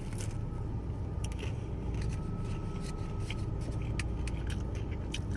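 Steady low rumble inside a car, with scattered small clicks and scrapes, such as from handling food packaging or utensils.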